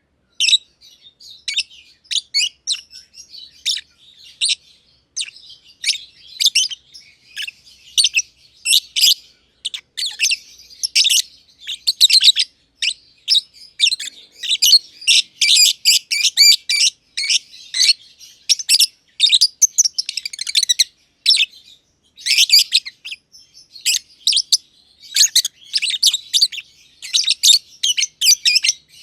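Masked lovebirds (Agapornis personatus) chirping in rapid, sharp, high calls, nearly without pause, with short lulls about two-thirds of the way through.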